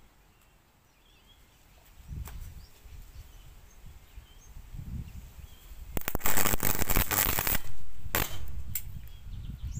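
Hard drive's circuit board overloaded from a Variac as the voltage is wound up toward 240 V: one crack about two seconds in, then a burst of loud crackling and popping for about a second and a half as components fail and burst, followed by two more sharp cracks.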